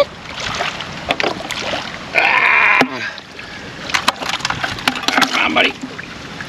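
A person's drawn-out wordless vocal sound, just under a second long, about two seconds in, with a shorter one near the end. Scattered clicks and knocks sound around them.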